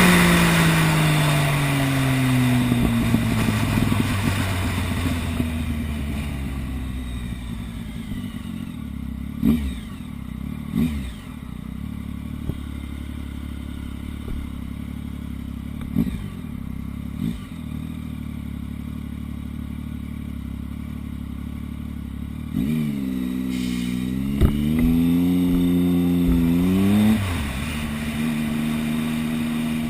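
2013 Triumph Speed Triple's 1050 cc three-cylinder engine through an Arrow race half exhaust system, its revs falling off a blip and settling to idle. Several sharp pops break into the idle, the popping and banging on the overrun that this exhaust gives. Near the end it is revved up, held for a few seconds and dropped back to idle.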